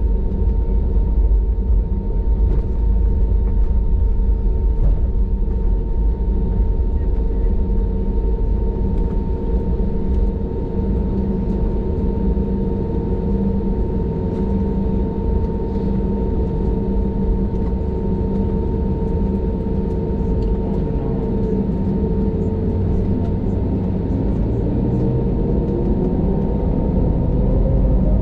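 Jet airliner cabin noise while taxiing: a steady low rumble with a steady engine hum and whine. Near the end the engine tones glide upward and the noise grows louder.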